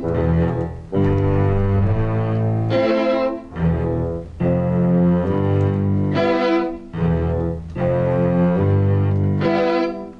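String orchestra playing classical music: sustained bowed chords in short phrases with brief breaks between them, low cello and bass passages alternating with higher violin chords.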